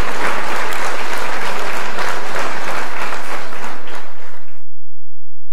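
Audience applauding, a dense clapping that cuts off suddenly about four and a half seconds in.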